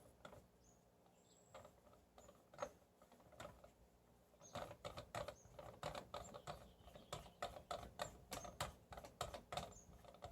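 Faint small clicks and scrapes of hand-handled metal parts, sparse at first and then coming several a second from about halfway: a shroud adapter with rubber O-rings being worked onto an air rifle.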